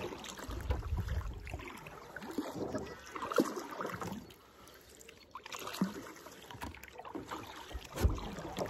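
Double-bladed kayak paddle working the river water in alternating strokes, with splashing and dripping from the blades; a few sharper splashes stand out along the way.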